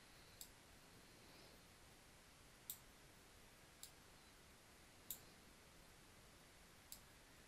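Five faint, sharp computer mouse button clicks at irregular intervals over quiet room hiss.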